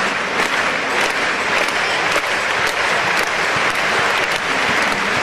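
Stadium crowd applauding, with claps beating together in a steady rhythm a little under twice a second.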